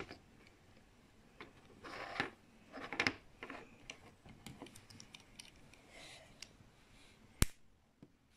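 Small LaQ plastic building pieces being handled and pressed together, making scattered light clicks and rustles, with one sharp snap near the end.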